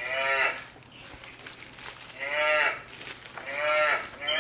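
Capuchin monkey calling: four short, high calls, each rising and then falling in pitch, with pauses between them.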